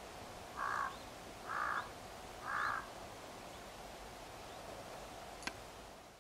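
A crow cawing three times, about a second apart, over a steady outdoor background hiss; a brief click follows near the end.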